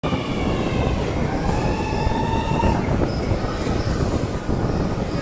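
Passenger train running through a rock tunnel: a loud, steady rumble of wheels on rail, with a high metallic wheel squeal over the first half that fades out about three seconds in.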